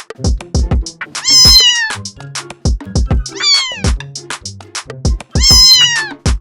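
Domestic cat meowing three times, each a long call that falls in pitch at the end, over background music with a steady beat.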